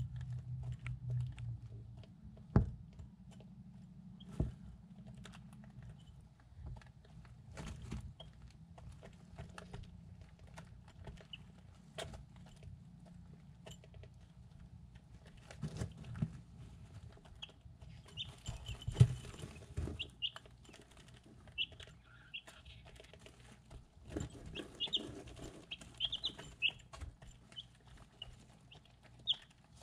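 Three-week-old chicks pecking feed from a ceramic bowl: irregular sharp beak taps and clicks on the dish, with short high peeps joining in during the second half.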